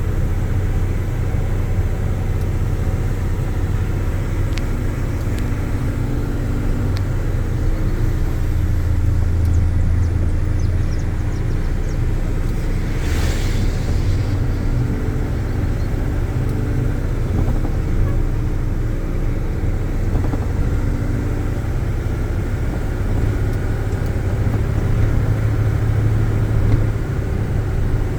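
Car driving at a steady pace: a constant low engine and road rumble, with a brief hiss about halfway through.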